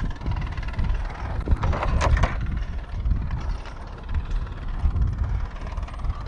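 Four-wheeler engine running as it tows a roping dummy across deep arena dirt, mixed with the hoofbeats of a horse running close behind.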